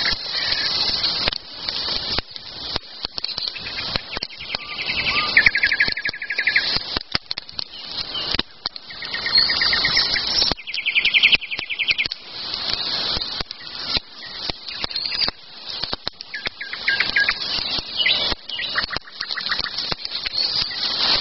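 Songbirds singing: a dense chorus of high chirps, with several rapid trills of one to two seconds each. Frequent short clicks and knocks run through it.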